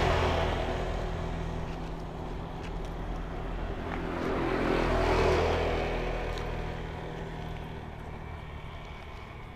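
Road traffic passing: one vehicle is at its loudest at the start and fades away, and a second swells and fades about five seconds in.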